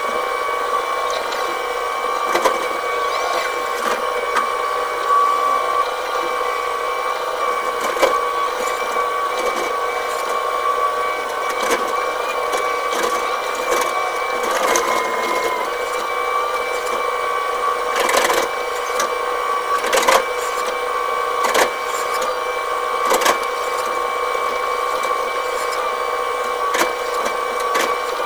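Excavator running, heard from inside the operator's cab: a steady machine whine with occasional knocks and rattles as the bucket pushes soil into a trench.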